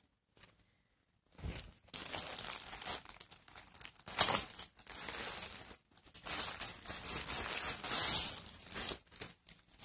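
Plastic garment bag rustling as it is handled and opened to take out the next piece of clothing. It starts after a short quiet moment, comes in irregular bursts, is loudest about four seconds in, and stops briefly near six seconds.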